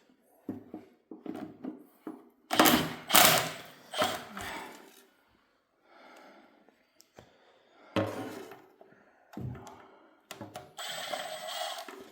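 Irregular knocks and clanks of metal tools and engine parts being handled during an engine teardown, loudest a few seconds in, with a longer rattling clatter near the end.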